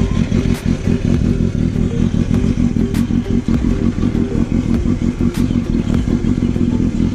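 Kawasaki ZX-6R 636's inline-four engine idling steadily, with a few faint clicks over it.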